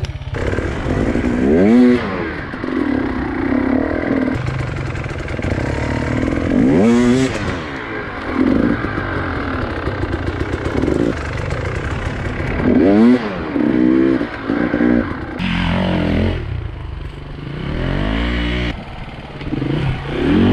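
Enduro dirt bike engines revving up and down on a steep climb, the pitch rising and falling in about five sweeps between steadier running.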